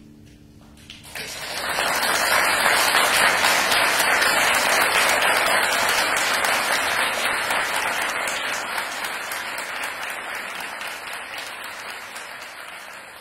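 Concert audience applauding: the last notes of the music die away, then the clapping starts about a second in, rises quickly to a steady, dense level and slowly fades toward the end.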